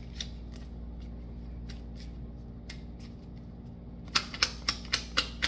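A tarot deck being shuffled by hand: a few light card clicks, then from about four seconds in a run of sharp snaps, about four a second.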